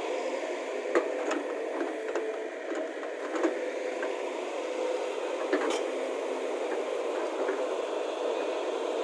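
Excavator engine running steadily, with a few sharp clanks about one, three and a half, and five and a half seconds in.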